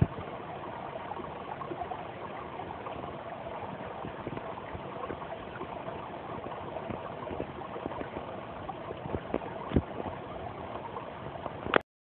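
Shallow mountain brook babbling over stones: a steady rush of water flecked with small splashes and gurgles. A sharp click comes near the end, then the sound cuts off.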